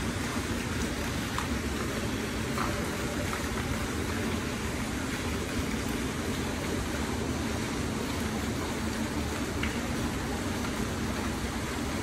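Water splashing steadily from a courtyard sculpture fountain, an even rushing wash with a few faint drips.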